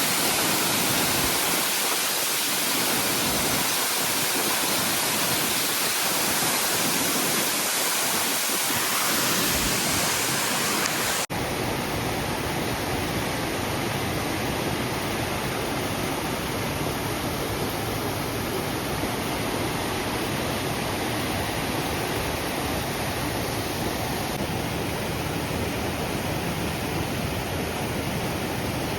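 Waterfall, a steady rush of falling water. About eleven seconds in the sound drops out for an instant and returns as a deeper, fuller rush.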